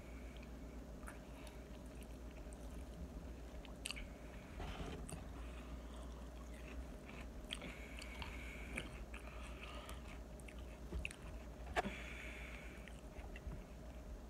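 Close-up eating sounds: chewing, with a metal fork scraping and tapping against a takeout food container, the sharpest tap about twelve seconds in.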